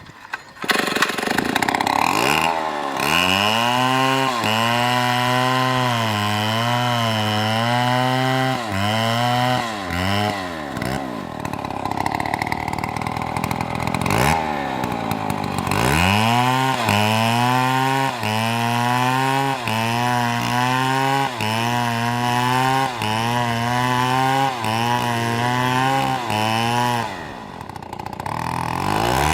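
Two-stroke chainsaw revving up and cutting wood, its engine note dipping and recovering about once a second under load. It falls away near the middle, then revs up and cuts again.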